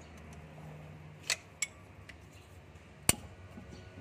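Steel spanner clinking against the front timing-cover bolts of a Mitsubishi Canter truck engine during teardown: two quick metal clinks a little over a second in and a sharper, louder one about three seconds in.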